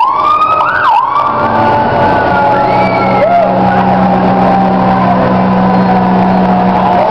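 Fire engine sirens wailing, several at once, their pitch sliding up and down. A steady low tone comes in about two seconds in and holds under them.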